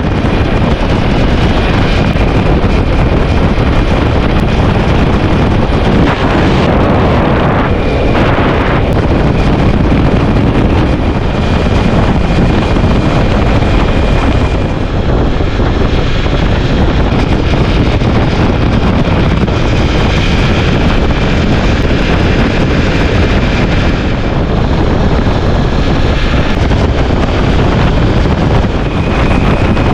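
Heavy wind noise on the microphone of a camera mounted on a moving Ducati Multistrada V4S motorcycle, with the bike's running sound underneath; it is steady throughout.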